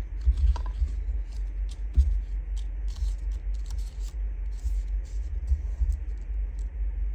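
Paper cutouts being picked up, shuffled and slid across a craft tabletop, with small crackles of paper and soft low thuds of hands on the table.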